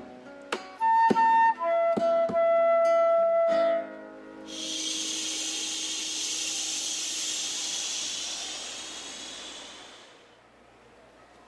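A flute plays a few held notes over sharp plucked or struck hits, stopping about three and a half seconds in. Then a long, steady "shhh" of people shushing fades out near the end.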